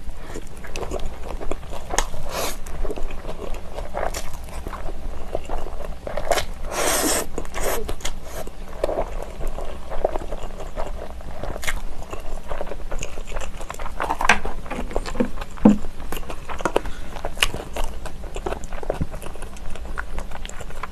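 Close-miked eating of spicy instant black bean noodles with sliced green chilies: steady chewing with wet mouth clicks and crunches, and one longer slurp about seven seconds in.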